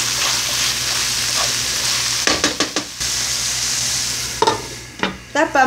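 Diced nopales sizzling in hot oil in a nonstick frying pan while a wooden spoon stirs and scrapes through them, with a few sharp scraping strokes about two seconds in. The sizzle fades near the end.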